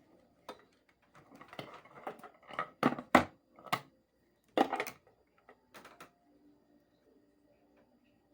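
Knocks, clicks and rattling of a ceiling fan's housing being handled and opened up, with a few sharp knocks louder than the rest about three seconds in and again near five seconds.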